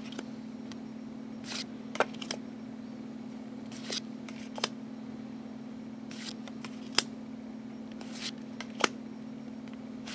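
Cardstock Pokémon code cards being handled and swapped in the hands one after another: short papery snaps and slides every second or two, over a steady low hum.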